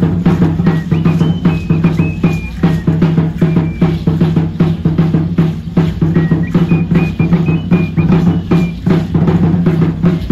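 Aztec dance drums beaten in a fast, steady rhythm, with a deep boom on each stroke. Twice a high piping tune of stepped notes plays over the drumming.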